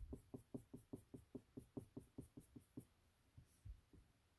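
Black felt-tip marker drawing quick short hash-mark strokes on paper, about five strokes a second, faint. The strokes stop nearly three seconds in, with two softer ones after.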